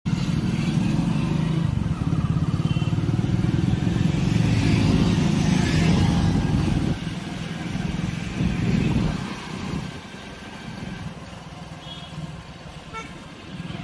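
Road traffic with engines passing close by, loud for about the first seven seconds, swelling once more shortly after, then dropping to a quieter steady hum.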